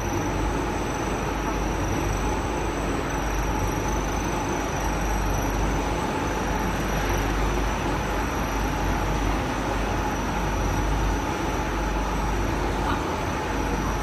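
Continuous carbonization furnace line running: a loud, steady mechanical whir of motors and fans with a low rumble and a couple of steady high whines.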